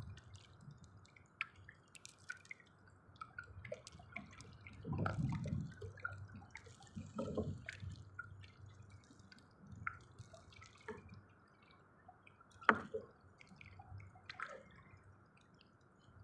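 Water dripping and trickling, with scattered small drops and splashes and two low sloshing swells. A single sharp knock about three-quarters of the way through is the loudest sound.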